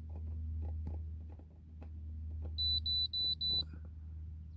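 OBD2 diagnostic scan tool beeping while reading the car's fault codes: four short, high beeps in quick succession about two and a half seconds in, over a steady low hum.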